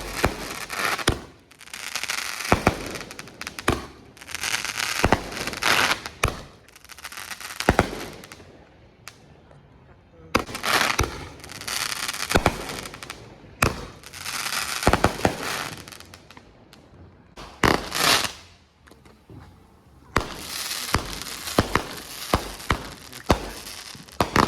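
A consumer firework cake firing: a quick run of shots and bangs, each with crackling bursts after it, in volleys with two short lulls along the way.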